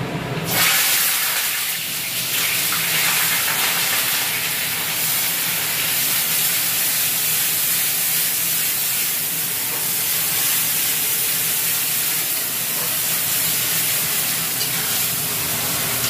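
Food sizzling in hot refined oil in a steel kadai, a steady hiss that starts suddenly about half a second in as the ingredients hit the oil.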